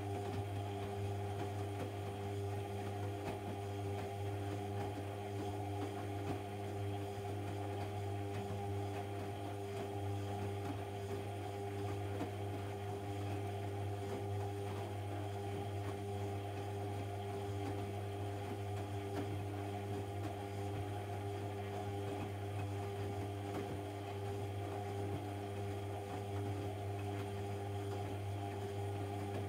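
AEG Lavamat 1400 washing machine running with a steady mains-frequency hum and a few fixed higher tones, unchanging throughout.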